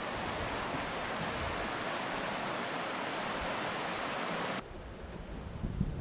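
Steady rushing of river rapids, white water over rock. It cuts off sharply about four and a half seconds in, leaving a quieter low rumble.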